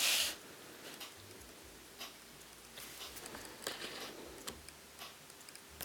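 A brief hiss at the start, then faint, irregular clicks and light taps from the plastic case of a vintage Citizen flip alarm clock being handled.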